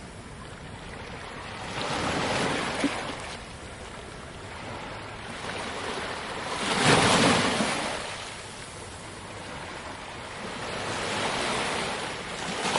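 Sea waves breaking and washing ashore, swelling and fading three times, with the biggest surge about seven seconds in.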